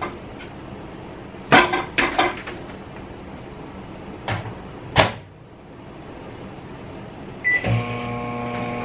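Microwave oven being loaded and shut: several sharp clacks, the loudest about five seconds in. A short beep comes near the end, and the microwave starts up with a steady hum while it melts butter.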